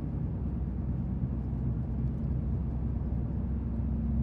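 Steady engine and road hum inside the cab of a 2015 Chevrolet Colorado 4x4 pickup while driving, a low even drone with no odd noises.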